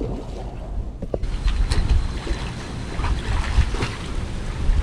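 Wind rumbling and buffeting against the microphone, with a few faint knocks.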